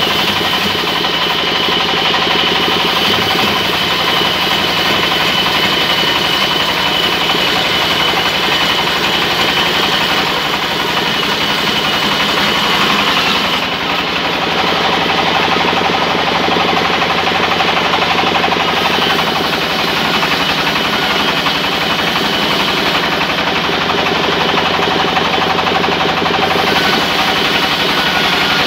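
Large belt-driven vertical band saw running and cutting lengthwise through a big log: a loud, steady mechanical din with a constant high whine.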